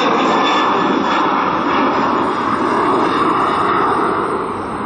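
Engine noise from an American Airlines Boeing 737-800's twin turbofans at climb thrust just after takeoff. It is a steady, loud jet rush that eases off slightly near the end as the plane climbs away.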